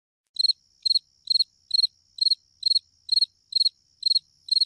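Cricket chirping, used as a comic 'awkward silence' sound effect: short, evenly spaced chirps, about two a second, starting out of dead silence.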